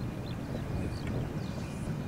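Distant Victorian Railways K-class steam locomotive approaching light engine: a low, steady rumble mixed with wind on the microphone. A few faint bird chirps come over the top.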